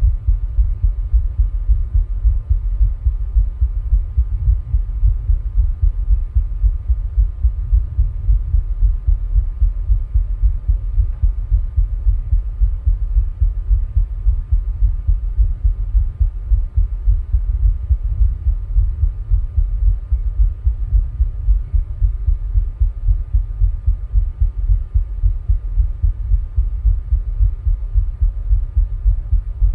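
A person's heart beating steadily at rest, recorded close up as a regular run of low heartbeats, while the person rebreathes air from a plastic bag.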